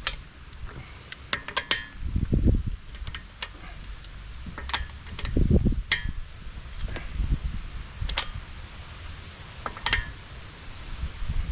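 Metal clinks of a 19mm socket and breaker bar on wheel lug nuts as they are broken loose, with two heavier low thuds about two and five seconds in.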